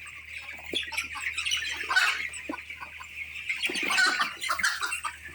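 Chickens squawking and clucking, with louder calls about two seconds in and again near four seconds, over a steady high chatter of other birds in the poultry house.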